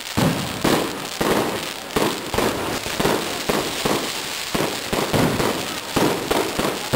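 Aerial fireworks bursting overhead: an irregular string of sharp bangs, about one to two a second, each with a short echoing tail.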